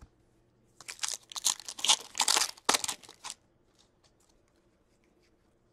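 Trading cards being handled and flipped through, making crisp rustling and crinkling from about a second in until past three seconds, then a few faint ticks.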